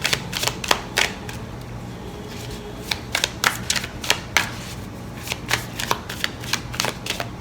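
A deck of tarot cards being shuffled by hand: an irregular run of short, crisp card clicks and flicks over a faint steady hum.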